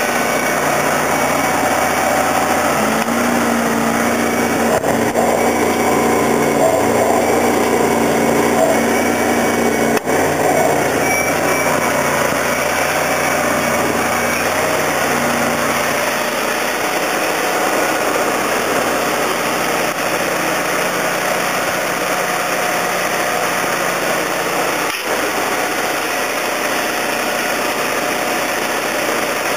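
Engine running steadily at idle, a continuous mechanical drone. An extra low hum joins it from about three to ten seconds in, and there are brief knocks about ten seconds in and again near twenty-five seconds.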